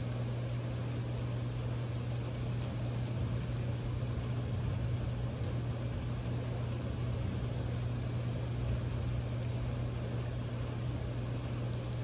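Steady rain hiss with a constant low hum underneath.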